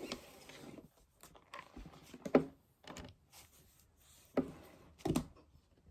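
Household handling sounds: a handful of soft knocks and clatters of objects being picked up and set down, with light rustling between them. The loudest knock comes a little before the middle.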